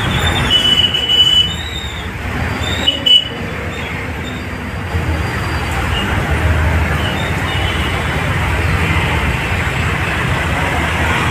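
Steady hiss of heavy rain mixed with the rumble of road traffic, heard from inside a vehicle. A few short high tones sound in the first few seconds, and a brief knock comes about three seconds in.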